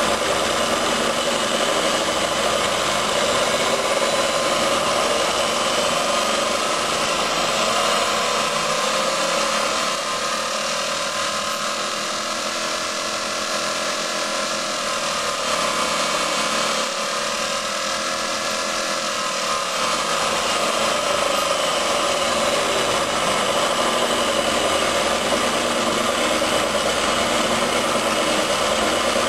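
Sun 506 distributor tester running, spinning a Motorcraft distributor with a steady mechanical whine. The pitch rises and falls as the speed is run up and back down through the middle.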